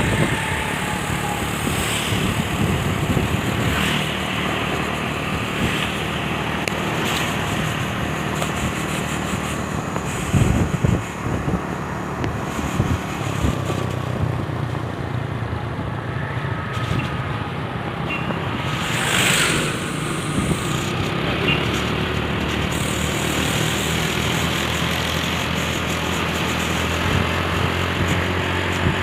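Diesel truck engine running steadily with road and traffic noise, and brief louder noises about a third and two-thirds of the way through.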